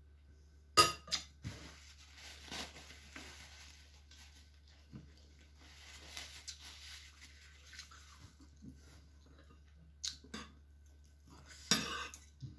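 A metal spoon clinks down into a ceramic bowl about a second in, followed by several seconds of soft paper-tissue rustling. Near the end a fork and spoon clink and scrape against the bowl.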